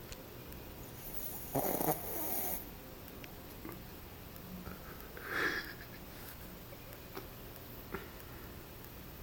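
Shih Tzu dog snoring in its sleep: two snores about three and a half seconds apart, the first the louder and longer.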